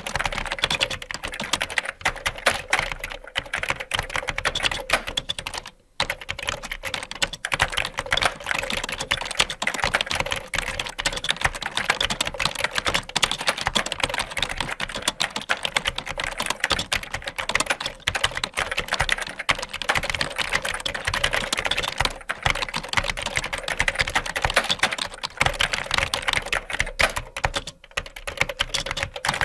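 Computer keyboard being typed on fast and continuously, a dense run of key clicks with a brief pause about six seconds in and another short lull near the end.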